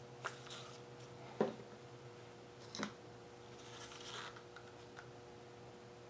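Wooden craft stick knocking and scraping in a small plastic cup of acrylic paint: three light knocks about a second and a half apart, the middle one loudest, then a short scrape and a faint click, over a low steady hum.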